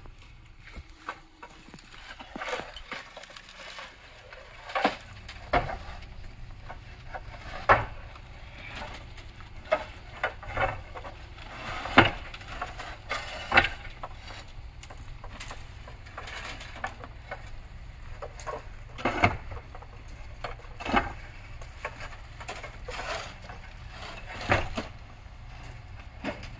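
Concrete barrel roof tiles knocking and clacking as they are set down and stacked on the roof, in sharp, irregular strikes every second or two, over a low steady hum.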